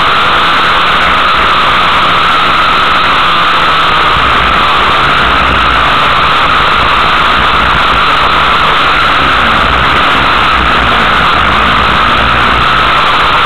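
Race car engine running hard under load, heard from inside the cockpit as a loud, harsh, heavily distorted sound that stays at an even level throughout.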